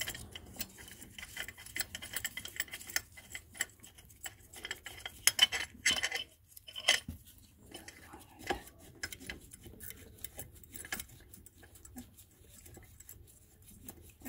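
Irregular metallic clicks and clinks of hand tools working the bolts on the engine beside a BMW Z3's oil filter housing, with a louder cluster of clanks about five to seven seconds in.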